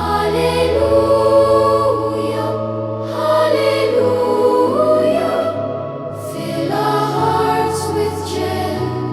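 Choral music: a choir singing long held notes over sustained low bass notes, the chord moving every second or two.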